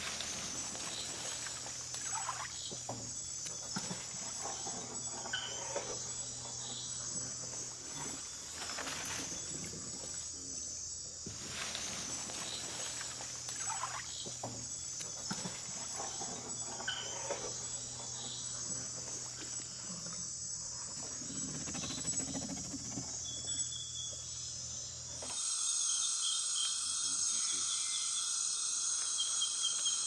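Night-time tropical rainforest insect chorus: a steady high-pitched buzz and trilling of crickets and other insects, with scattered soft clicks and knocks. About 25 seconds in it switches abruptly to a louder chorus with more distinct repeated trills.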